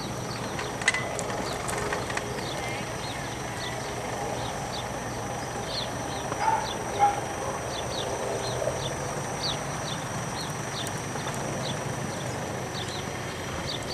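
Paint pony cantering and jumping on sand arena footing: hoofbeats over a steady outdoor hiss, with a run of short high chirps through the middle.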